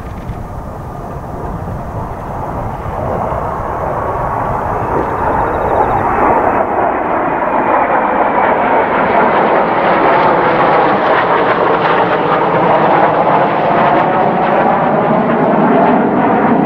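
A formation of Kawasaki T-4 jet trainers flying past, their jet noise a steady rush that grows louder over about the first ten seconds as they come overhead, then holds loud.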